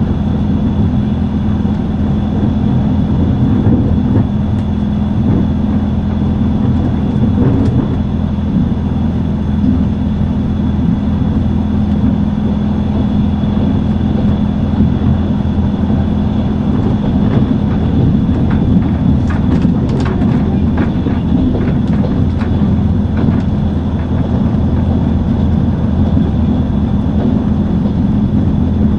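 Steady running noise of a moving Trans-Siberian passenger train heard from inside the compartment: a continuous low rumble of the wheels on the rails with a faint high steady whine. A few light clicks come in about two-thirds of the way through.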